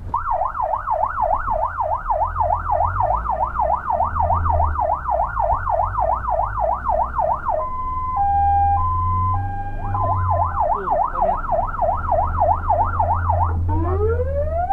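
Fire engine's electronic siren heard from inside the cab, over the truck's low engine drone. It runs a fast yelp of about four sweeps a second, switches about halfway to a two-tone hi-lo for about two seconds, returns to the yelp, and near the end changes to a slow rising wail.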